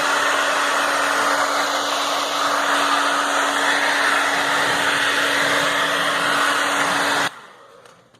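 Hair dryer blowing steadily with a constant hum, heating a refrigerator door's dried-out rubber gasket to soften it. It is switched off suddenly about seven seconds in.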